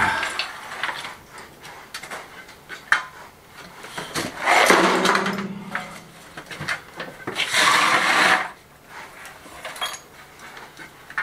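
Old rubble and dry nest debris being scraped off a stone-and-plaster ledge with a metal hand tool. It comes as scattered clicks and knocks, with two longer scraping, rattling rushes about four and a half and seven and a half seconds in.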